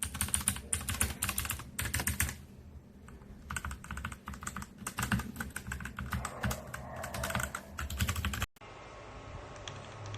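Typing on a mechanical keyboard fitted with Outemu switches: rapid runs of keystroke clicks, with a short pause about two seconds in, cutting off suddenly about eight and a half seconds in.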